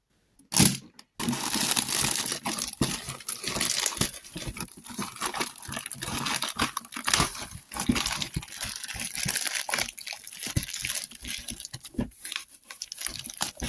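A package being opened by hand: packaging tearing and crinkling, with continual rustling and many small sharp knocks and snaps.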